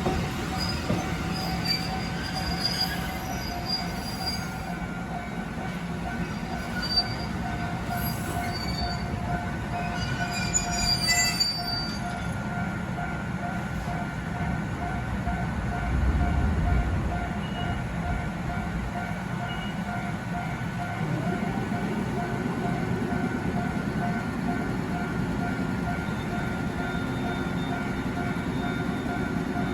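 Kotoden Kotohira Line electric train at a station platform. High wheel or brake squeals come in the first dozen seconds over a steady pulsing tone; from about two-thirds in, a low running sound rises in pitch as the train pulls away.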